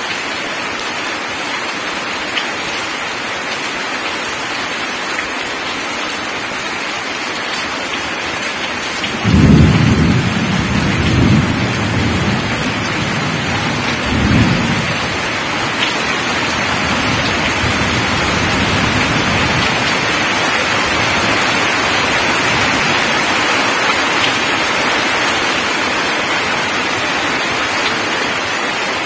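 Heavy rain pouring onto gravel ground, a steady hiss. About nine seconds in, a sudden peal of thunder breaks and rumbles on in low rolls for several seconds, then the rain goes on alone.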